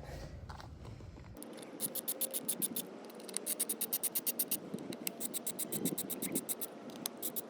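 Ratchet driver with a T25 bit clicking rapidly in runs, several clicks a second, as the derby cover screws on a Harley primary are backed out.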